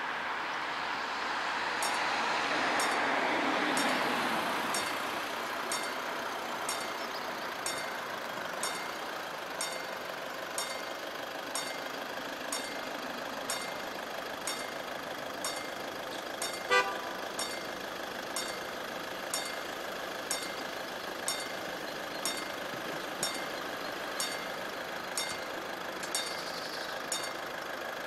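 Level-crossing warning bell (Läutwerk) striking about once a second while the crossing closes and the barriers come down. A road vehicle swells and fades over the first few seconds, and a single short horn toot sounds about two-thirds of the way through.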